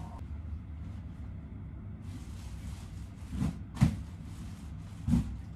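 Bedding rustling and pillows being plumped, with three soft thumps about three and a half, four and five seconds in, the one near four seconds the loudest, over a steady low hum.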